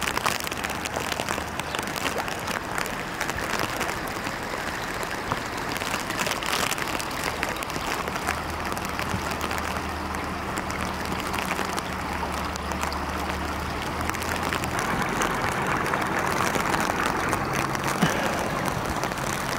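Steady rushing noise of water in a flood, with a low steady hum underneath through much of it.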